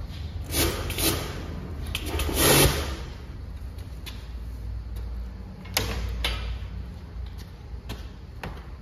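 Pressure washer in a wash bay: a steady low hum under several short bursts of hissing spray, the longest and loudest about two and a half seconds in.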